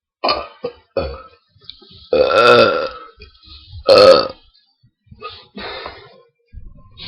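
A person burping on purpose, a string of forced burps. Two loud ones stand out, a long one of about a second a little after two seconds in and a shorter one about four seconds in, with several short, weaker burps around them.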